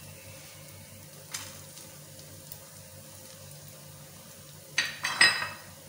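Sliced almonds and chopped pistachios frying gently in desi ghee in a nonstick pan on a low flame, a faint steady sizzle. A brief clatter against the pan comes near the end.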